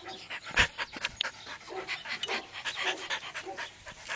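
A small dog panting in quick breaths while jumping up excitedly, with a single sharp thump about half a second in.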